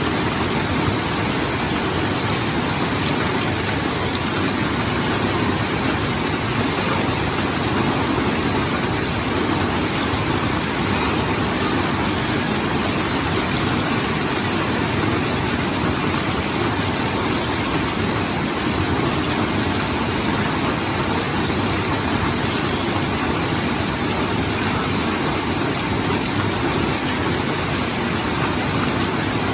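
Monsoon rain falling steadily, a loud, even rush that does not change.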